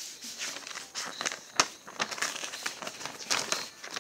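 Sheet of paper rustling and crinkling as it is handled and moved, with irregular small crackles and one sharp tap about one and a half seconds in.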